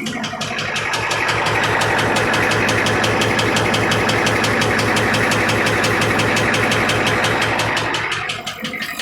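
6.9L IDI V8 diesel engine running with a rapid, even knock, the clatter the owner calls engine knocking. The engine picks up about a second in, holds there, and drops back near the end.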